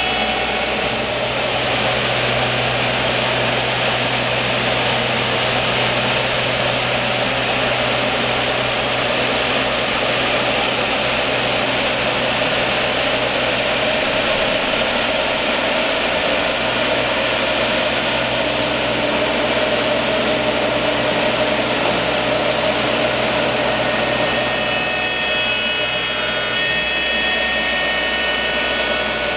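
Lih Woei LH-28-A automatic copy shaping machine running, its spinning cutter shaping a wooden spindle. It makes a steady, loud machine whir, and high whining tones come in near the end.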